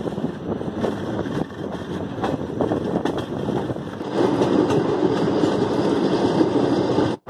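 Passenger express coach running at speed: wheels rumbling and ticking over the rail joints, mixed with rushing air at the open window. About four seconds in it turns louder and steadier, and it cuts out for an instant near the end.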